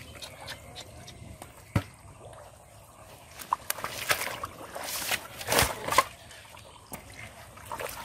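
Hands and feet splashing and squelching in shallow muddy water, with trickles and sloshes, a sharp knock about two seconds in, and the loudest splashes past the middle.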